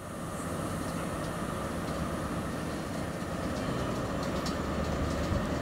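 InterCity 125 (HST) diesel train moving slowly along the platform: a steady low engine hum and rumble that grows slightly louder.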